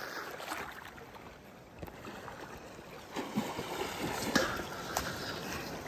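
Water sloshing and splashing as a person wades waist-deep through a river, getting a little louder about three seconds in.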